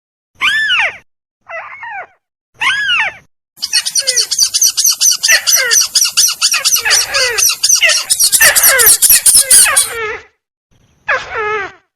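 Lure recording of tikusan crake calls: short, loud, arched calls that slide down in pitch, repeated about once a second. From about 3.5 s to 10 s they build into a dense overlapping chorus with a rapid high chatter, and a single call comes again near the end.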